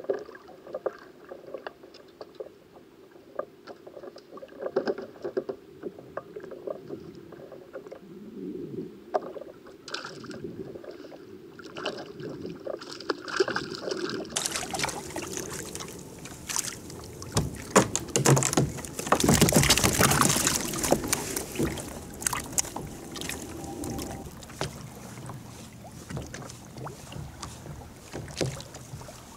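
Water lapping and splashing around a sit-on-top kayak, with small clicks and knocks from handling the rod and reel. A little past the middle there are a few seconds of loud splashing as a hooked fish is brought up beside the kayak.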